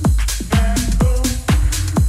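Electronic dance music with a steady kick drum, about two beats a second, and sustained synth notes between the beats.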